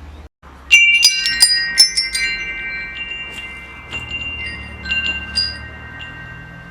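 Metal wind chimes struck in a quick flurry about a second in, their bright tones ringing on and slowly fading, with a few more lighter strikes later. A brief dropout comes just before the first strikes.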